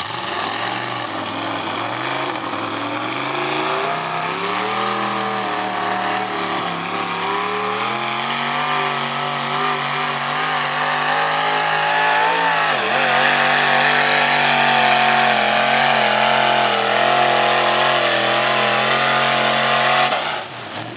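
Mud truck's 388 small-block Chevy V8 running hard under load, loud throughout. Its pitch climbs in steps over the first half, dips sharply for a moment around the middle, then holds high until it cuts off abruptly near the end.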